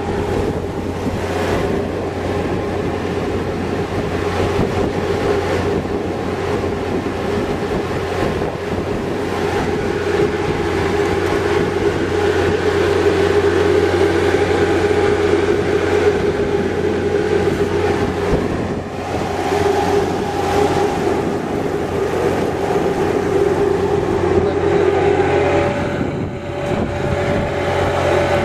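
Fishing boat's engine and deck machinery running steadily: a constant mechanical hum, with a higher steady tone joining in near the end.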